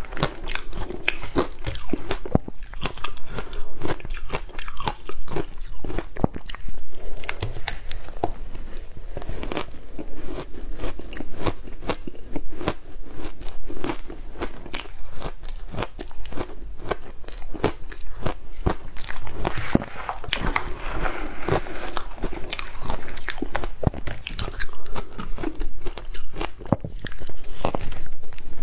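Close-up crunching and chewing of shaved ice, a rapid, irregular run of sharp crackles.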